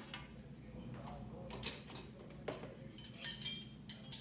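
Dishes and cutlery being put away: a few separate clinks and knocks, the loudest pair about three seconds in.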